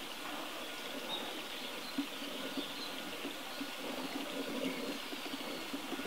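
Steady rush of flowing water with a few faint, high bird chirps over it.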